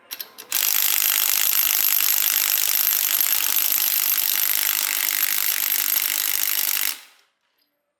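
A power tool running steadily for about six seconds, starting about half a second in and cutting off near the end.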